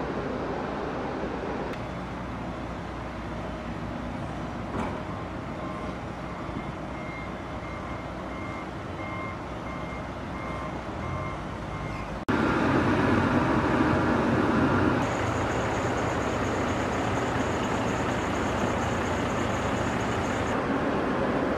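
Diesel engines of wheel loaders fitted with forks running, with a reversing alarm beeping about twice a second in the first half. After a sudden cut, a louder, closer engine runs on, with a thin steady high whine for several seconds.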